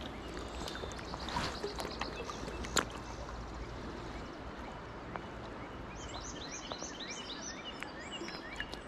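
Steady rush of a fast-flowing river, with a sharp knock about three seconds in. From about six seconds on, a small bird chirps over and over in short rising notes.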